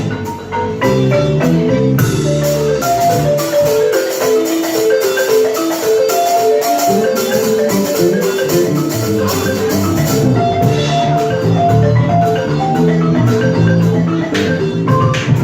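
Balafon, the West African wooden xylophone, playing a quick stream of short melody notes over lower bass notes, with percussion strokes mixed in. The low notes thin out for a few seconds in the middle.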